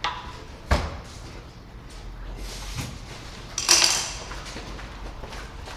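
Hands working on a new motorcycle's handlebar controls and mirror mount: a sharp click under a second in, a lighter knock, and a short scraping rustle a little past the middle.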